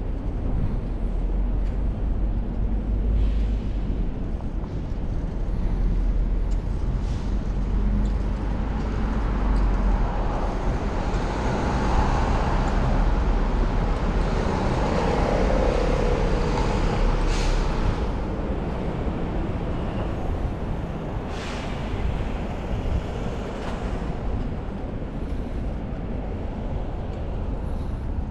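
City street traffic noise heard from a moving bicycle, with a steady low rumble underneath. The noise swells in the middle as a vehicle passes, and there are two short hisses in the second half.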